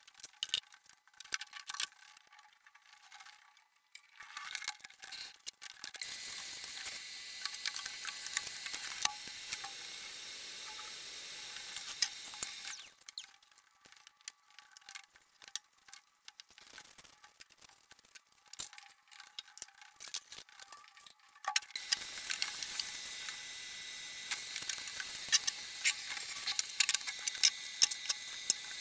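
Canister vacuum cleaner running, a steady hiss with a high whine: on about six seconds in for some six seconds, then on again from about 22 seconds. Between the two runs, scattered clicks and knocks of things being handled.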